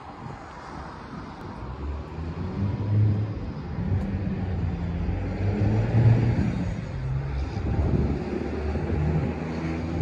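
A low, uneven rumble that grows louder about two seconds in.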